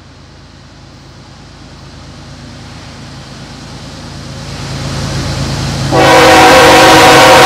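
An oncoming train's rumble grows steadily louder as it approaches on the track. About six seconds in, the locomotive's air horn sounds suddenly and very loud, a steady chord of several tones.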